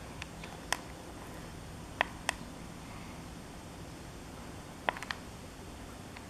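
Sharp plastic clicks of buttons being pressed on an electric bike kit's LCD display: a pair about two seconds in and a quick run of three near five seconds.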